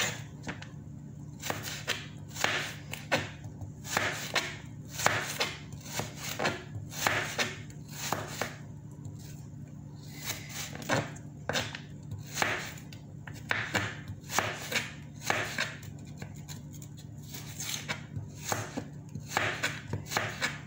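A kitchen knife chopping carrots into sticks on a cutting board: irregular sharp knocks of the blade hitting the board, one or two a second, over a steady low hum. The cook calls the knife a bit dull.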